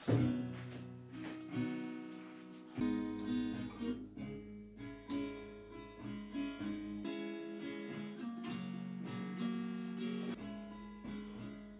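Acoustic guitar being played, a run of strummed chords and picked notes, with a strong chord struck right at the start.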